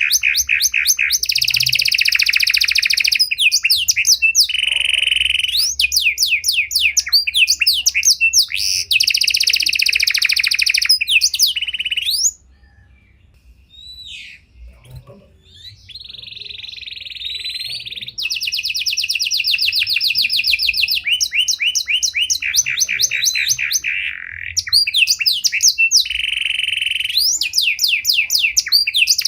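Domestic 'panda' (pied) canary singing a long, elaborate song of high, rapid trills and rolls, phrase after phrase. It breaks off for about three seconds near the middle, then resumes.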